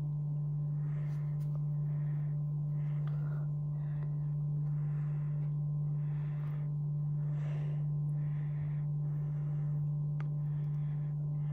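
A steady low electrical hum, the loudest thing throughout, with soft breaths about once a second from someone close to the microphone.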